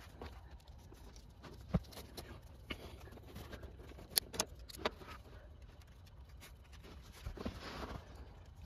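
Plastic strap buckles clicking and nylon webbing rustling as hands work them, with a few sharp clicks between about two and five seconds in and a soft rustle near the end.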